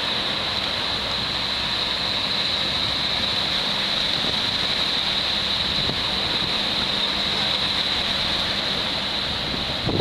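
Small waves breaking and washing up the beach, a steady hiss of surf with no distinct single crashes.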